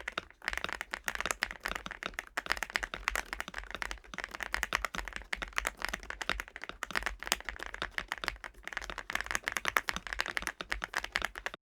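Fast, continuous typing on an MCHOSE UT98 gasket-mounted mechanical keyboard: a dense stream of key clicks that stops abruptly just before the end.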